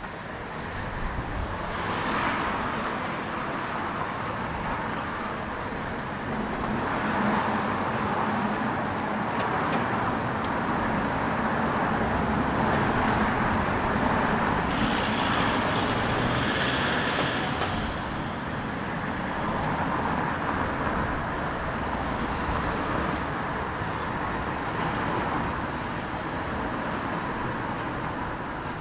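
Road traffic on a city street, vehicles passing one after another so the noise swells and fades several times, loudest in a long pass through the middle.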